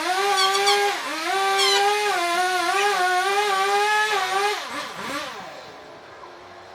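High-speed electric power tool motor whining as it cuts wood, its pitch dipping briefly under load and recovering. It spins down about five seconds in.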